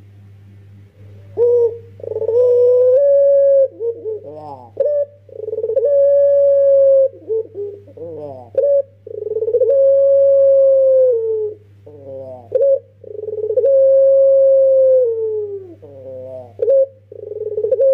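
Young 'pelung'-type Barbary dove (puter) cooing over and over: each phrase is a quick run of rolling notes followed by a long, held, slightly falling coo, repeating about every four seconds after a quiet first second. A steady low hum runs underneath.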